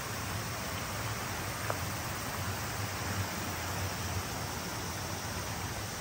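Steady rush of running water from a small rocky mountain stream.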